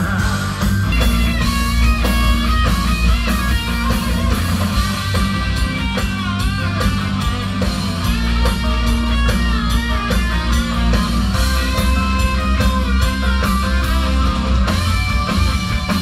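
Live rock band playing an instrumental passage: an electric guitar lead with bending, sliding notes over bass guitar and drums.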